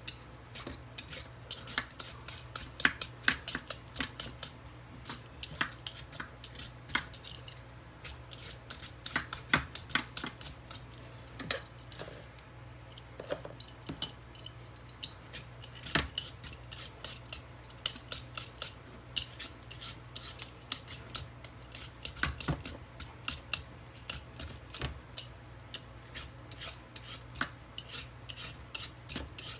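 Vegetable peeler scraping strips of skin off a raw butternut squash: many short, sharp scraping strokes at an irregular pace, often a couple a second, with a few brief pauses.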